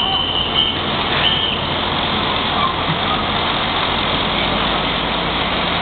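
Heavy vehicle engines running steadily at idle amid street traffic noise, with two brief high squeals in the first second and a half.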